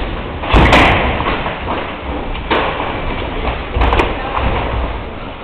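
Thuds of gloved punches and shin-guarded kicks landing in kickboxing sparring, the loudest about half a second in and smaller ones near two and a half and four seconds.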